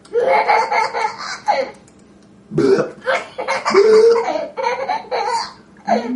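A toddler laughing hysterically, mixed with an adult's mock barfing and burping noises voiced for a hand-puppet dog, in two bouts with a short lull about two seconds in.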